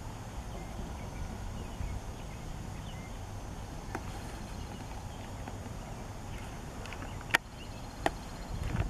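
Outdoor ambience: a steady low rumble with a few faint, scattered bird chirps. Two sharp clicks come near the end.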